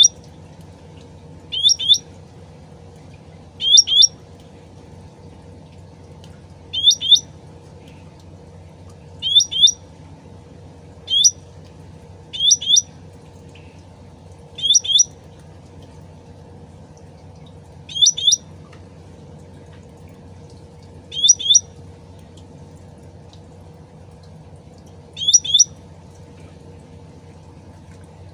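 Cucak ranting (cucak rante) bird calling in short, sharp double chirps, about ten of them, spaced two to four seconds apart, over a steady low trickle of running water.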